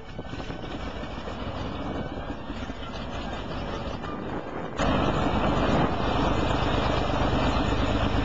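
Ryan Navion B's six-cylinder Lycoming engine and propeller running as the plane taxis. The noise builds gradually, then jumps suddenly louder about five seconds in.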